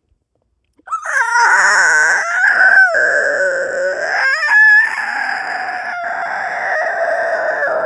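A person's voice making a long, raspy, animal-like screech that wavers in pitch, starting about a second in and breaking off briefly a couple of times.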